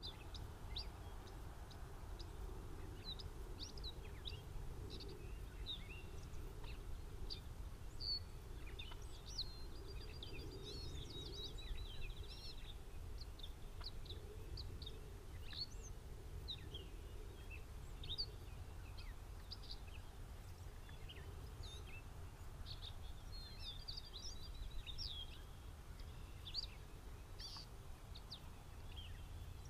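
Songbirds chirping throughout, many short high calls with rapid trills about a third of the way in and again near the end, over a steady low rumble.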